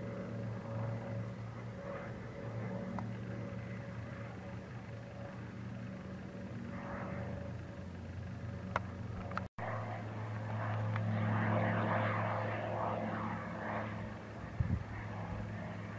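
Single-engine light plane's propeller engine droning steadily while towing a glider. There is a brief dropout just over halfway through, after which the drone is louder.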